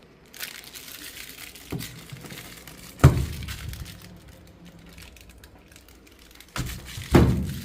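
A few knocks and thumps of something being handled, the loudest about three seconds in and again near the end, with rustling between.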